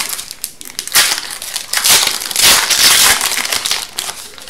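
Foil wrapper of an Upper Deck hockey card pack being torn open and crinkled as the cards are pulled out, the crinkling loudest about halfway through.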